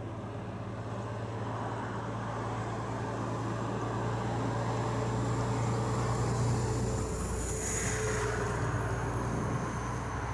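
Embraer Phenom 300 business jet's twin turbofan engines during its landing rollout: a steady jet rumble with a thin high whine that drifts slightly lower, swelling with a rush of noise about three quarters of the way through.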